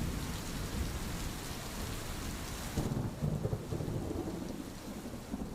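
Rain sound effect: a steady hiss of falling rain, with a low rumble of thunder coming in about three seconds in as the hiss drops away, then fading out near the end.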